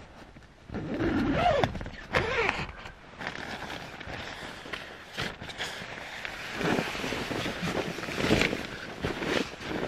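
Tent nylon and a down jacket rustling and scraping as a person crawls into a small tent, with louder bursts of crinkling about a second and two seconds in and again near the end.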